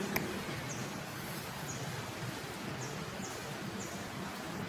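Outdoor forest ambience: a steady background hiss with faint rustling and short high chirps about once a second. A single sharp click comes right at the start.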